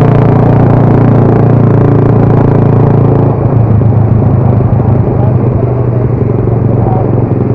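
Motorcycle engine running loud and steady while riding. About three seconds in, the even engine tone gives way to a rougher, pulsing note.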